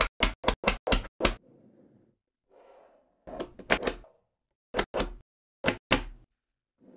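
Small magnetic balls clicking as they snap together: a quick run of about six sharp clicks in the first second and a half, then more clicks in clusters around the middle and near the end, with faint handling rustle between.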